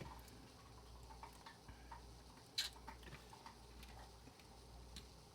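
Faint, scattered small clicks and ticks from handling a gutted pin-tumbler lock cylinder and its parts, with one sharper click about two and a half seconds in.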